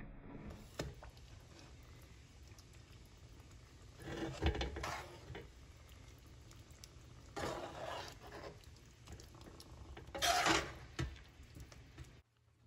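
Metal spoon stirring and scraping through wet rice in a large aluminium pot, in three separate strokes a few seconds apart.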